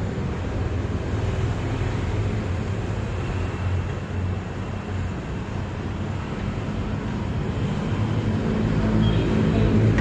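Steady low engine rumble with a haze of noise over it, getting louder over the last couple of seconds.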